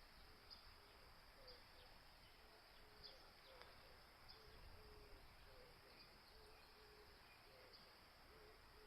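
Faint outdoor nature ambience: a steady high insect drone with short, low animal calls repeating about once a second.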